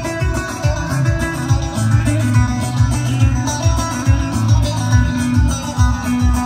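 Kurdish wedding dance music for the halay line dance. A fast, steady drum beat runs under a melody of plucked-string or keyboard notes.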